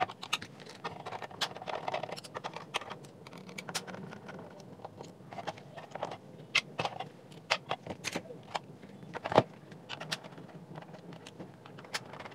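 Hard plastic speaker housing and its clip parts clicking, scraping and knocking irregularly as hands pry and pull a speaker driver loose from it. One sharp, louder click comes about nine seconds in.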